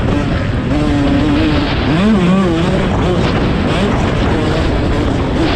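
Off-road motorcycle engine running on the track, its pitch rising and falling as the throttle is worked, under a loud, steady rushing noise.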